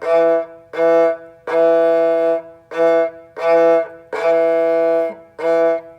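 Kamancheh (Persian spiked fiddle) sounding one open string in alternating push and pull bow strokes: about seven notes at the same pitch, some short and some longer, each starting with an accented bite of the bow for grip on the string.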